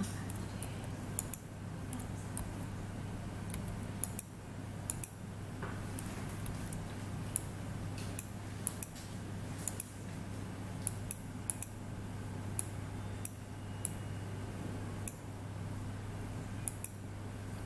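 Computer mouse clicks, sharp and irregular, some in quick pairs like double-clicks, over a steady low electrical hum.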